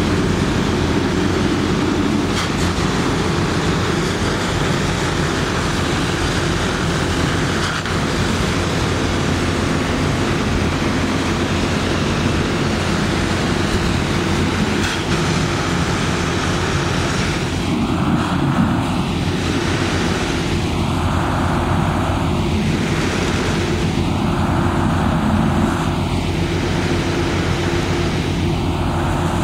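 A loud, steady engine drone with a low hum, from a motor running continuously at the fire scene. From about two-thirds of the way through, the sound wavers in a slow cycle about every three seconds.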